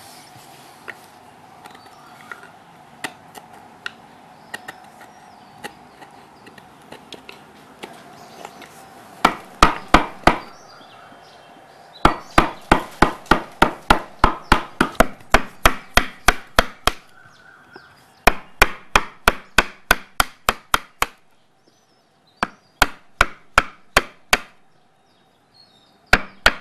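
Quick chopping strokes on wood, coming in several runs of about five sharp strikes a second with short pauses between them.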